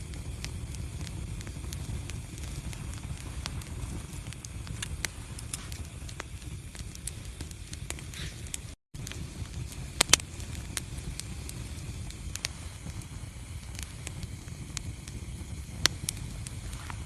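Wood fire burning in a fireplace: a steady low rumble of flames with scattered crackles and sharp pops, two louder pops in the second half. The sound cuts out for an instant about halfway.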